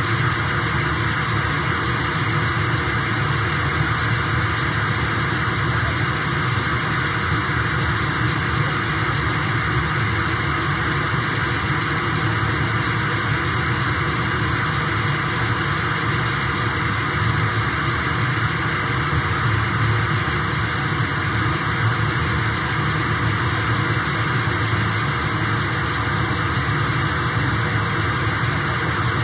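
A steady, unbroken wall of loud electronic noise from a live noise-music performance, hissing and rumbling at once and not changing.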